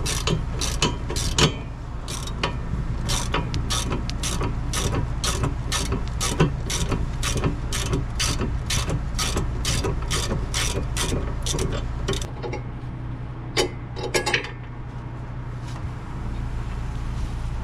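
Hand socket ratchet clicking steadily, about three clicks a second, as bolts on a Honda Acty's front strut rod mount are backed out; the clicking stops about twelve seconds in, with a few more clicks a little later. A steady low hum runs underneath.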